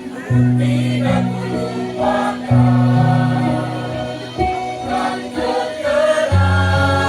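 A choir singing in several parts over held low accompaniment notes that change a few times.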